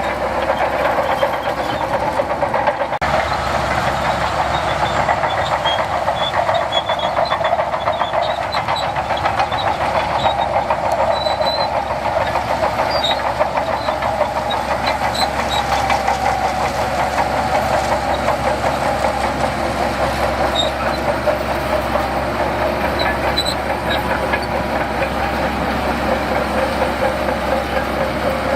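Bulldozer working: its diesel engine runs steadily under load with continuous metallic clatter and occasional short high squeaks.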